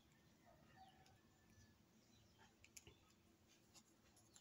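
Near silence, with a few faint clicks of tarot cards being handled and shuffled in the hand.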